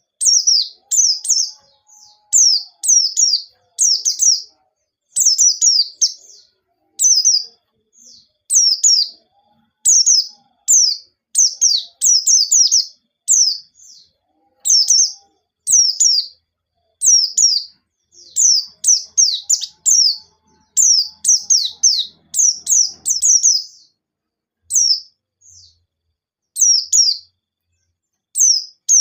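White-eye (pleci, Zosterops) singing hard: a continual run of short, high, down-slurred chirps in quick clusters of a few notes, one cluster after another with brief gaps.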